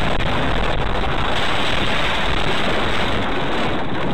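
Loud, steady rushing and rumbling of a car running off the road at speed and tumbling, picked up by its own dash cam inside the car. It grows harsher about a second in as the car goes through dry grass and brush, with no single clear impact.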